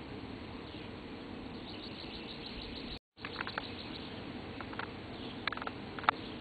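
Outdoor field ambience in summer: a steady insect hum with a few short bird chirps. The sound cuts out briefly about three seconds in.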